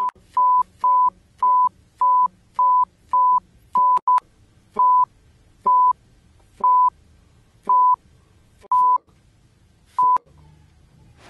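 A string of about fifteen short, high, single-tone censor bleeps, each masking a shouted swear word ('fuck') with a scrap of voice showing around it. They come about two a second at first, then the gaps widen to one every second or so, the last about ten seconds in.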